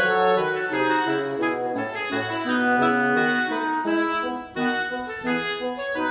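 Instrumental background music: a melody of held notes on a wind instrument over lower keyboard accompaniment.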